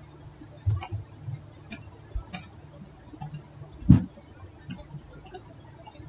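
Computer mouse clicking again and again, about one click a second, as toolbar buttons are picked, with one louder knock about four seconds in.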